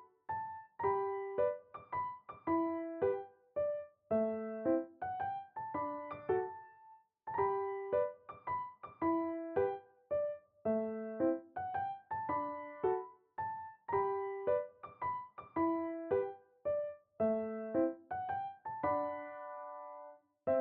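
Gentle piano background music: a slow melody of single struck notes that each fade, with a brief pause about seven seconds in and a longer held chord near the end.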